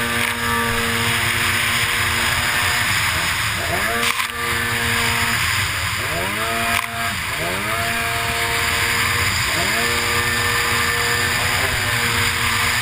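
Racing runabout jet ski's engine at high revs, heard from on board, its pitch dropping and climbing again several times as the throttle is eased and reopened through the turns, over a constant hiss of spray and wind. Two brief slaps about four and seven seconds in, the hull hitting the chop.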